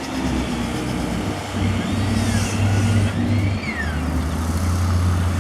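A motor vehicle engine running steadily, a low hum under everything, with a faint high tone that rises and falls twice near the middle.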